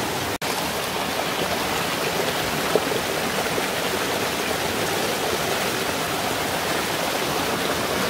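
Mountain stream tumbling in small cascades over moss-covered rocks: a steady rush of running water.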